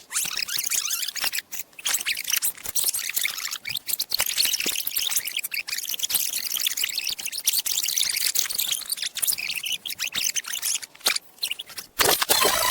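Harsh, high-pitched hissing noise, choppy and broken by many brief dropouts and clicks; a louder, harsher burst starts near the end.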